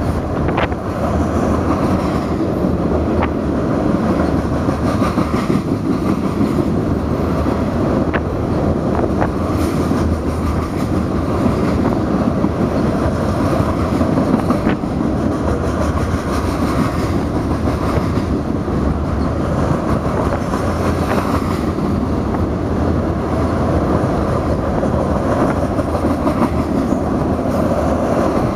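Freight cars of a passing grain train rolling by with a steady rumble, with scattered sharp clicks of wheels over rail joints.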